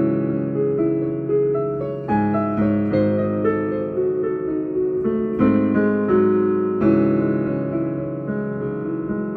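Piano being played: a slow piece of chords and melody notes struck every second or so, each ringing on and fading before the next.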